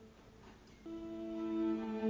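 Slow background music of long held notes. A fuller, louder chord comes in just under a second in.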